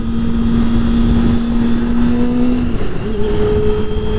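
Kawasaki ZX-25R's inline-four engine through a Yoshimura R-77 exhaust, running at a steady high-revving note under riding wind rush. About three seconds in, the pitch steps up and holds higher as the engine revs rise.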